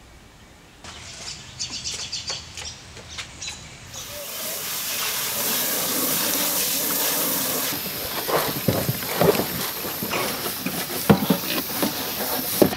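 Water spraying from a garden hose into a trough, a steady hiss that starts about four seconds in, with pigs grunting close by in the second half. Before the spray comes a string of light clicks and knocks.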